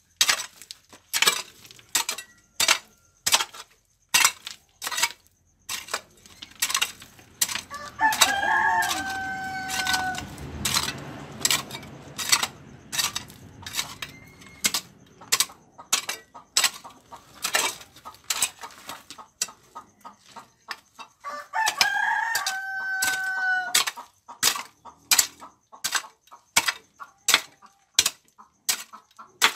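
A hoe chopping into stony dirt in repeated sharp strikes, one or two a second. A rooster crows twice, each crow held about two seconds, about eight seconds in and again after twenty seconds.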